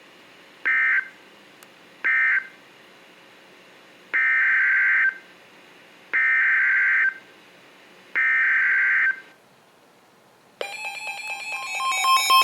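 Emergency Alert System digital data bursts: two short end-of-message bursts closing one warning, then three longer header bursts opening the next, each a harsh buzzing screech. About ten seconds in, the two-tone EAS attention signal starts and grows louder.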